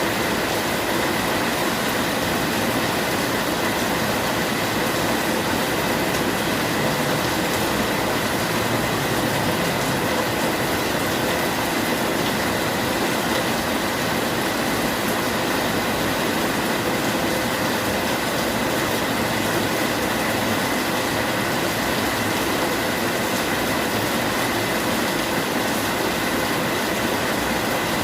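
Steady rainfall, an even, unbroken hiss that holds the same level throughout.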